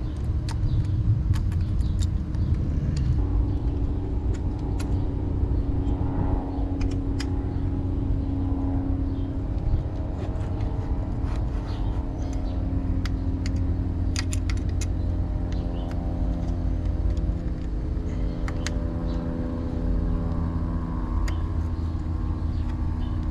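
A motor vehicle's engine running nearby: a steady low rumble with a hum that slowly shifts in pitch. Light metallic clicks come now and then from bolts and an Allen key being handled while the stem screws are set.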